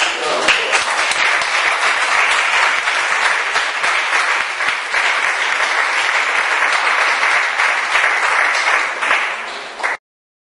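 Audience applauding: a roomful of people clapping steadily, which stops abruptly near the end.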